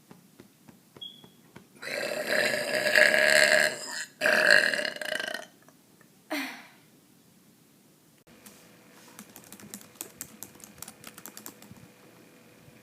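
A woman burps loudly about two seconds in: one long burp, then a second straight after. A short burp with a falling pitch follows a second later. After that comes faint rapid clicking over a low hum.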